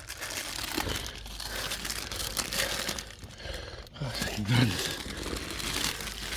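Plastic wrappers being crumpled and crinkled in the hand, an irregular crackling.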